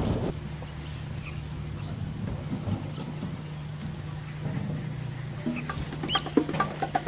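Outdoor bush ambience: scattered bird chirps, with a rising whistled bird call about six seconds in, over a steady low hum and a steady high hiss. A few light knocks come near the end.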